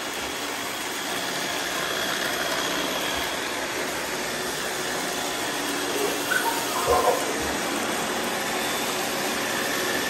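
Several robot vacuums, iRobot Roombas and a eufy, running together on a tile floor: a steady motor and suction hum with a faint high whine. A couple of brief louder bumps come about seven seconds in.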